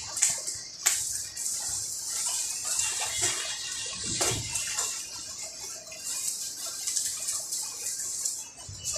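Arc welding: the welding arc crackles and hisses steadily, with a couple of sharper pops in the first second.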